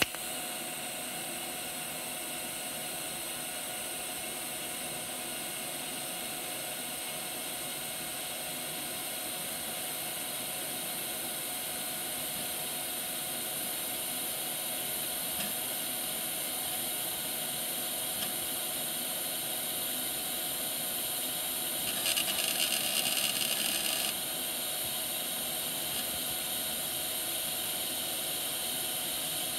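TIG welding arc burning on thin stainless steel: a continuous steady hiss with a faint even whine, growing louder for about two seconds roughly three-quarters of the way through.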